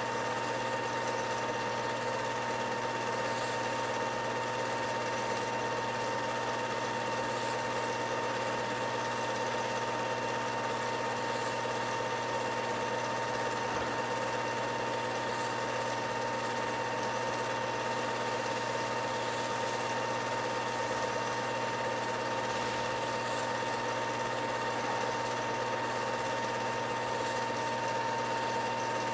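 Steady mechanical whir of a running 8mm film projector, with a constant hum and a few steady tones.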